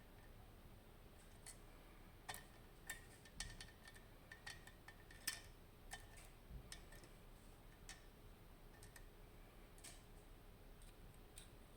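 Faint, irregular metallic clicks and ticks of small steel disks and parts being handled and removed from an Abus Plus disc-detainer lock core during disassembly.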